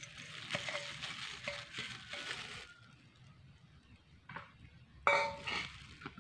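Crispy fried shallots scraped from a small bowl onto mashed potato, a soft dry rustle with light clinks of utensil on bowl, then a louder clink of dishes about five seconds in.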